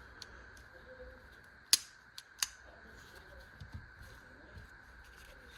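Hard objects being handled: two sharp clacks about two-thirds of a second apart, with a few fainter clicks and soft knocks around them.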